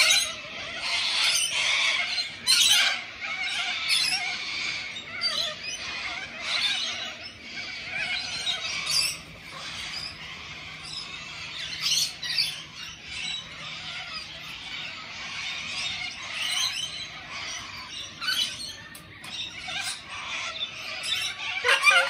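A flock of corellas and cockatoos screeching, many harsh overlapping calls at once. The calling is densest and loudest over the first several seconds and thins somewhat after that.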